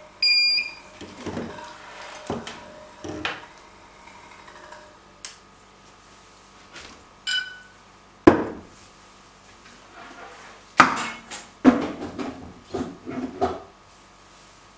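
Glass lab beakers knocking and clinking as they are handled and set down on a bench, in a string of separate knocks and clatters. A short ringing tone sounds near the start and another about seven seconds in.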